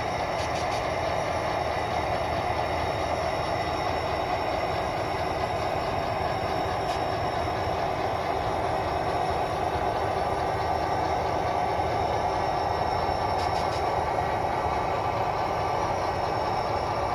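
Model railroad diesel locomotives running slowly along the track, giving a steady mechanical drone with a few faint ticks.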